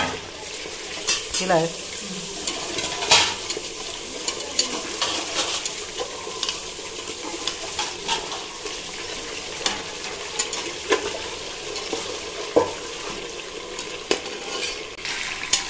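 Potato chunks deep-frying in hot oil in an aluminium pressure cooker pot: a steady sizzle with frequent sharp crackles and pops.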